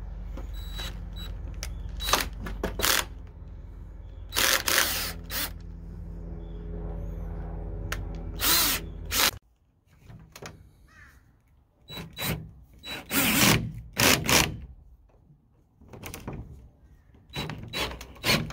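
Cordless drill-driver with a socket bit running a nut onto a gate-hinge bolt, in a string of loud runs of a second or so. A steady hum under the first half cuts off abruptly about nine seconds in.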